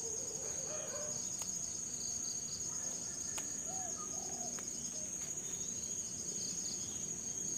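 Insects chirring in a steady, high, continuous tone, with a couple of short bird calls about three and four seconds in.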